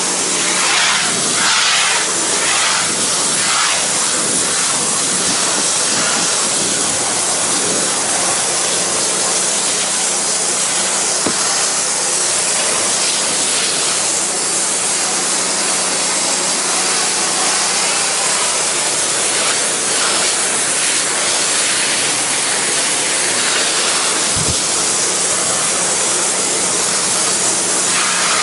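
Pressure washer spraying water at low pressure onto a painted wood deck: a steady, even hiss of spray, with a steady low hum underneath.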